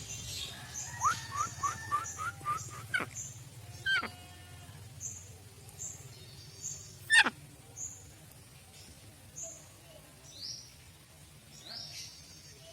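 Birds chirping: a quick run of about seven short chirps between one and three seconds in, with thin high peeps repeating about once a second. A single sharp click about seven seconds in is the loudest sound.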